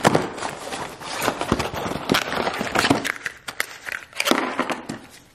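Cardboard and plastic packaging of new spark plugs being handled: crinkling and rustling with many sharp clicks, busiest in the first three seconds, then a few scattered clicks.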